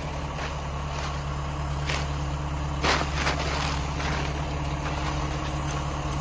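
Engine idling steadily, with a few short knocks about two and three seconds in.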